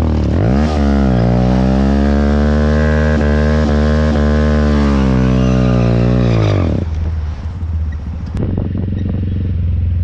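Motorcycle engine revved up sharply and held at high revs for about six seconds, then dropping back to idle. A police officer took this revving for a burnout in the road.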